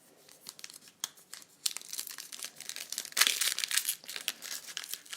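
Foil trading-card pack wrapper crinkling and being torn open: a rapid, irregular run of crackles that gets louder about one and a half seconds in.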